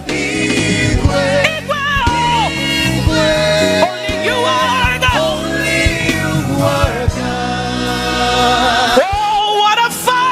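Live gospel music: singing over a band, with long held, wavering notes and steady low drum hits beneath.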